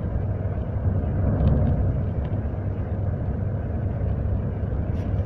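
Steady low rumble of road and engine noise inside a moving car's cabin, swelling slightly about a second and a half in.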